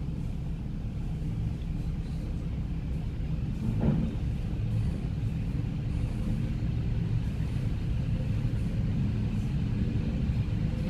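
ET2M electric train pulling away, heard from inside a carriage: a steady low rumble of wheels and running gear that grows slowly louder as the train gathers speed, with one knock about four seconds in.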